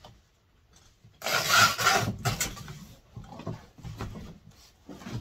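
A cardboard mower box being opened: a loud rip and scrape about a second in, then shorter rustles and scrapes of the flaps being pulled open.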